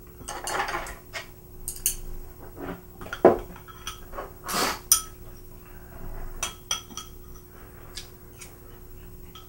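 Chopsticks clicking against ceramic bowls and plates during a meal: scattered light clinks with a few louder clatters, over a faint steady hum.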